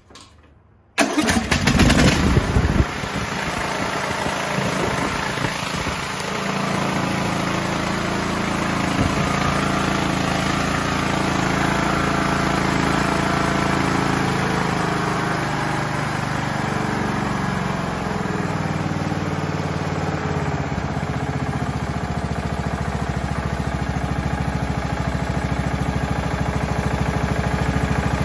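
Craftsman LT1000 riding mower's single-cylinder engine cranking and catching about a second in on a shot of starting fluid, then running steadily with its speed shifting a few times as it settles. It is the engine's first run after sitting unused for years, and it runs decently.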